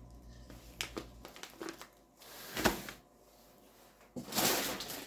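Crinkling of a plastic snack bag being handled, with a few small knocks early on and a short rustle past the middle; the crinkling gets loud near the end.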